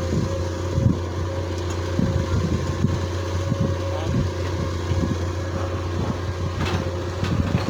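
Excavator's diesel engine running steadily under work, with scattered low clunks and a brief hissing burst near the end.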